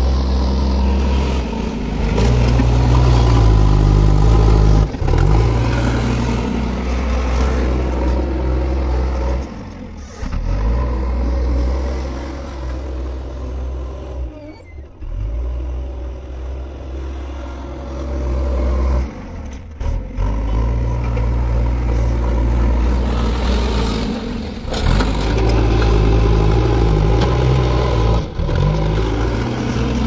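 Diesel engine of a JCB 3DX backhoe loader running under load as the machine drives and carries a bucket of earth, its low drone swelling and easing off several times as the throttle changes.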